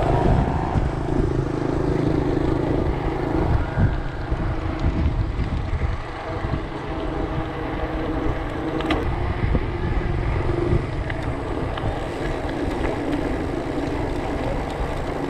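Wind buffeting an action camera's microphone while cycling, a steady low rumble with a faint low hum in the first few seconds and again near the end.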